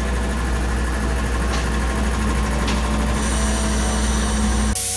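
Engine-powered machinery on a spray-foam insulation rig truck, centred on an AIRMAN unit, running with a steady low drone. A higher hiss joins about three seconds in, and background music cuts in at the very end.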